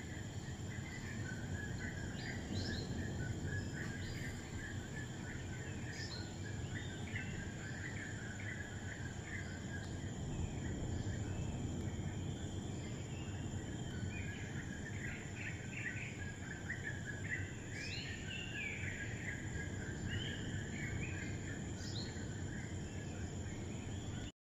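Birds chirping outdoors: many short overlapping chirps, busiest about two-thirds of the way through, over a steady low rumble of outdoor background noise.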